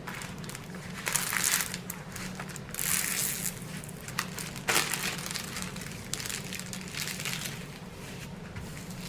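Plastic packaging crinkling and rustling as it is handled, in a few irregular bursts with a sharper click about halfway through.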